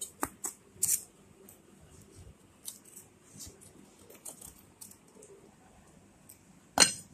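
Knife blade clicking and scraping against the inside wall of a metal pudding mold as it is run around the edge to loosen a steamed custard pudding: a few sharp clicks at first, then faint scattered ticks, and one louder clink near the end.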